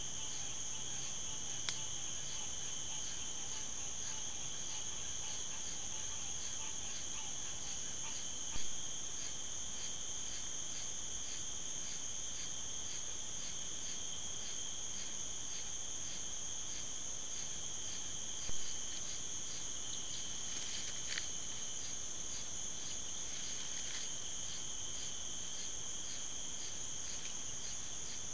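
Night insect chorus: steady high-pitched trilling with a regular chirp about twice a second. Short knocks about 9 and 19 seconds in.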